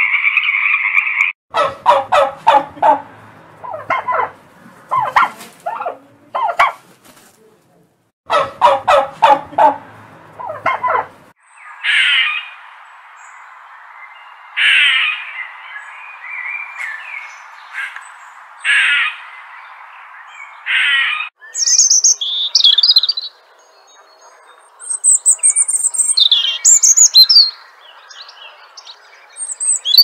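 A sequence of animal calls. A green water frog's croaking cuts off about a second in, followed by two runs of rapid pulsed calls from an unseen animal. Next come single grey squirrel calls over a steady hiss, then from about two-thirds of the way through, a small songbird's high, quick chirps.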